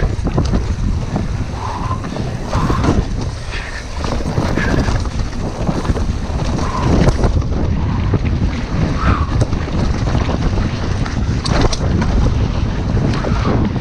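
Wind buffeting the camera's microphone as a Devinci Spartan mountain bike descends a dirt singletrack at speed, with the steady rumble of the tyres and scattered knocks and rattles from the bike over the bumps.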